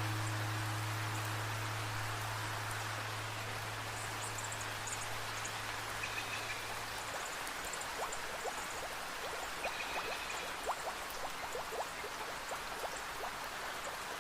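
Steady rain, with the low hum of a struck bell fading away over the first half. From about halfway, single drops tick sharply and close by.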